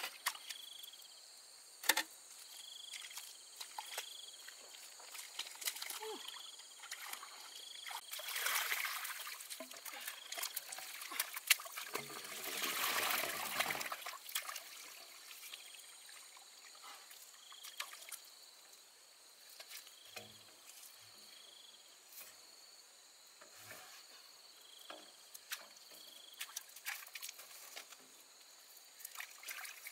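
Shallow water sloshing and trickling, with scattered sharp splashes and clicks and a louder stretch of splashing about twelve to fourteen seconds in. Short high chirps recur in the background.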